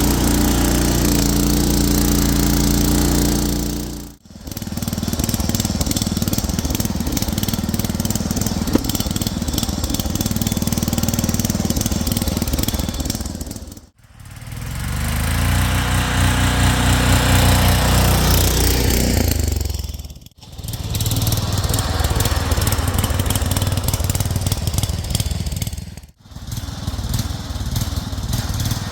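Six-wheel Craftsman garden tractor's engine running as it is driven along a trail, its pitch climbing and easing with the throttle. The sound breaks off briefly four times where clips are joined.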